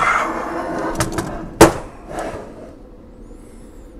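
The metal body of a 1917 Monroe mechanical calculator being turned over by hand, rattling and scraping for about a second and a half, then a single sharp knock as it is set down on the workbench.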